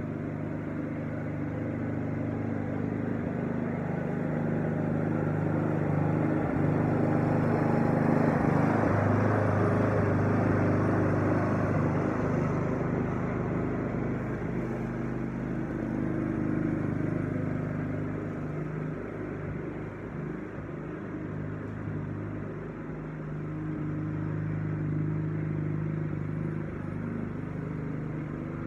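Walk-behind lawn mower's small engine running steadily under mowing load. It grows louder as the mower comes nearer, eases off, and swells again near the end.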